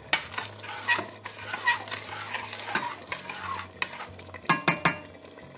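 Metal ladle stirring a thick vegetable sauce in a stainless steel pot, scraping and knocking against the pot's sides and bottom, with a few sharp metal clicks about four and a half seconds in.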